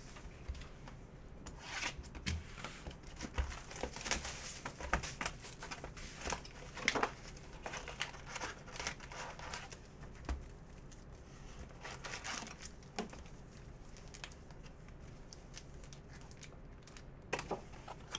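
Foil baseball card packs and their box wrapping being torn open and crinkled by hand: scattered rustles, short tears and small clicks, thinning out in the last few seconds.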